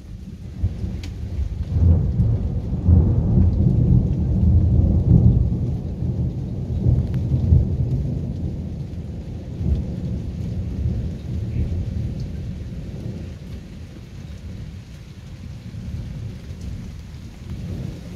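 A long peal of thunder rumbling low. It swells about two seconds in, stays loud for several seconds, then slowly dies away.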